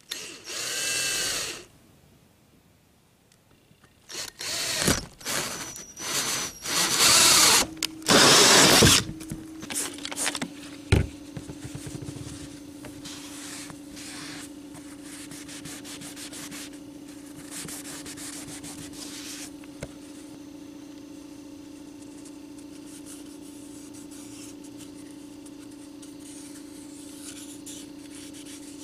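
Power drill with a hole saw spinning up briefly, then cutting through the RV roof in several loud bursts of a second or two each. After that, a steady low hum and a rag rubbing over the roof surface.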